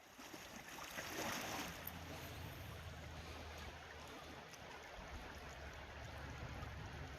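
River water flowing, a steady rush that swells slightly about a second in.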